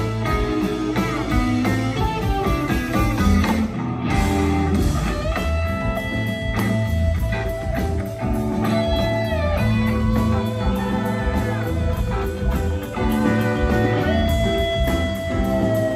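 Live rock band playing: electric guitars over bass and drums, with a lead guitar holding long sustained notes that bend and slide down at their ends.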